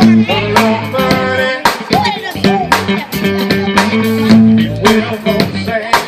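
Recorded music playing loudly: a funk-style song with a steady beat, bass, electric guitar and a singing voice.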